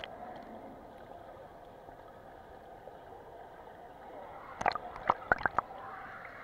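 Swimming-pool water heard from under the surface: a dull, muffled, steady wash. About four and a half seconds in comes a quick run of sharp clicks and splashes as the water is stirred around the submerged camera.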